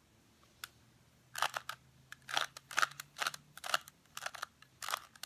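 Rubik's Cube plastic layers being twisted by hand: a quick run of clicks and clacks starting about a second and a half in.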